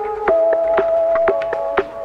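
Background music: held notes that shift to a new chord about a third of a second in, over a steady ticking beat.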